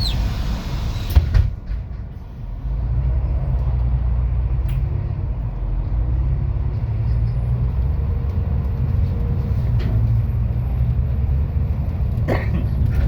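MAZ 216 city bus: a hiss of compressed air ending with sharp knocks about a second in, then the diesel engine running steadily as the bus drives on, with a few clicks near the end.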